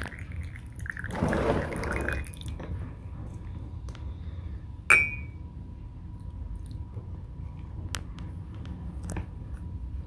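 Warm water scooped from a paper cup with a plastic measuring scoop and poured into powdered bird formula, with a trickling pour about a second in. A sharp tap of the plastic scoop about halfway, with a short ring, and a few faint clicks after.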